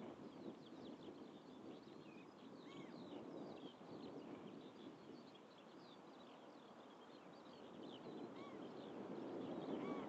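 Small birds chirping and calling repeatedly and faintly, over the distant rumble of the Red Arrows' BAE Hawk jets, which grows louder near the end.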